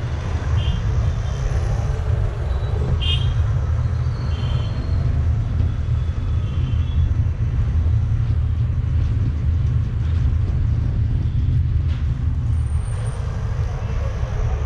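Steady low rumble of a car driving along city roads, with road and traffic noise. A few faint, brief high-pitched sounds come in the first seven seconds.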